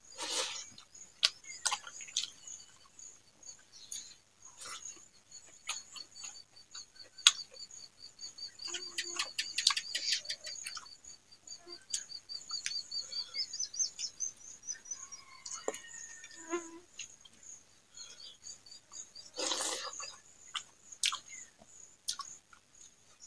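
Close-up eating sounds from a mouthful of rice and fried greens eaten by hand: wet mouth smacks and chewing clicks, with a longer rushing slurp or breath right at the start and again about two-thirds of the way in. Behind them runs a steady series of rapid high-pitched chirps like a small bird or insect.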